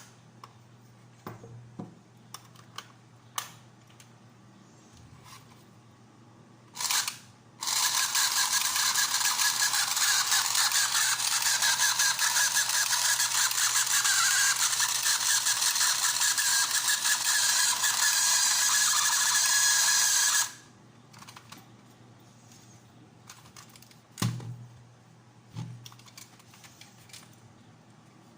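Vibration motor of a battery-powered toy horse-racing track running. The track buzzes and rattles loudly for about thirteen seconds, then cuts off suddenly. The motor makes a small noise the owner doesn't like. A short burst comes just before it starts, and a few small clicks come before and after.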